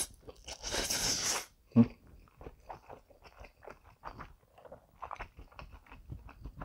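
Close-miked eating of soft instant noodles: a long slurp of a mouthful in the first second and a half, then steady chewing with many small soft mouth clicks. A single brief knock sounds about two seconds in.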